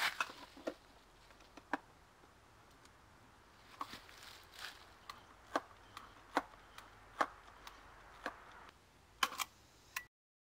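Mamiya RB67 medium-format camera being handled on its tripod: a series of irregular sharp mechanical clicks and snaps from its controls, with a quick double click near the end, then the sound cuts off abruptly.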